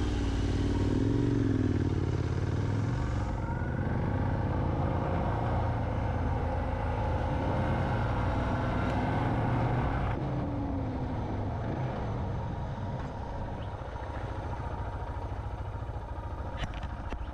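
Motorcycle engine running while riding, its pitch rising and falling with throttle changes, over a steady haze of road and wind noise. It gets quieter over the last few seconds.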